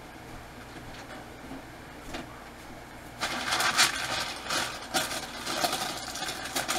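Irregular rustling and scraping of hands-on kitchen food prep close to the microphone, starting about three seconds in after a quiet stretch of steady room hum.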